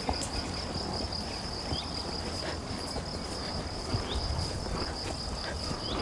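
Crickets singing in a steady high-pitched trill, over a low rumble.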